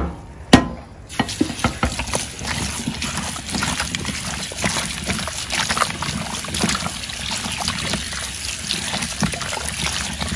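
Kitchen tap running into a glass bowl of cut yam sticks, with water splashing and sloshing as hands rub and rinse the yam. Two sharp knocks in the first second.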